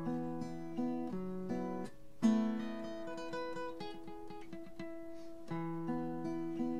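Acoustic guitar playing a picked chord pattern, the notes ringing into each other, with a louder strummed chord about two seconds in.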